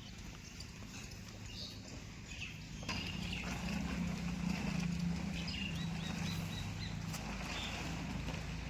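Diesel engine of the earthmoving machinery running steadily with a rhythmic knock, growing louder about three seconds in.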